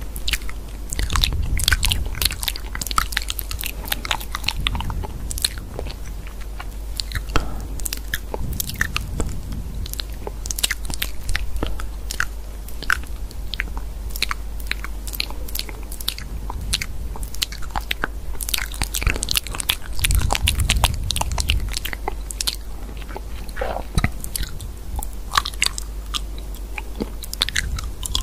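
Rapid, irregular clicks and taps of typing on a phone's touchscreen keyboard, over a steady low hum.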